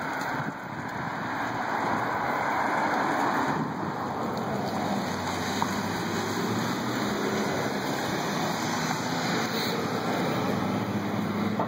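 Steady street noise from car traffic on the road, mixed with wind on the microphone.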